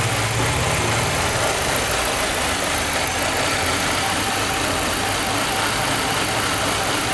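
Peugeot 206 1.4 four-cylinder petrol engine idling steadily, with a low hum that fades out about a second and a half in.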